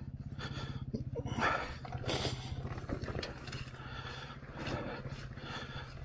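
Kawasaki KDX two-stroke dirt bike engine idling with a fast, even low pulse. There are a few short scuffs and knocks about one and a half and two seconds in.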